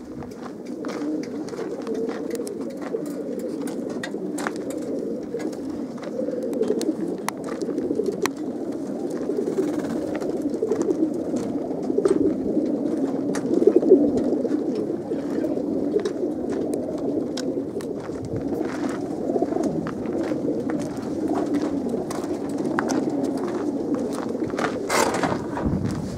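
A large flock of racing pigeons cooing together in the crates of a transporter truck: a continuous low chorus of overlapping coos, with scattered sharp clicks throughout.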